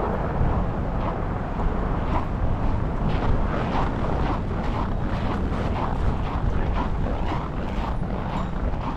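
Strong wind buffeting a GoPro's microphone with a heavy low rumble, and footsteps in snow at a walking pace, about two a second.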